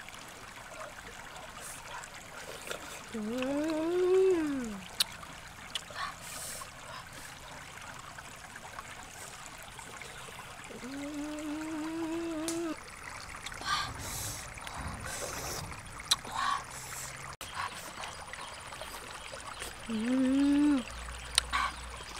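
Shallow stream trickling over rocks, with a woman's closed-mouth hums of enjoyment three times while she eats. Between the hums come a few sharp smacking clicks from chewing.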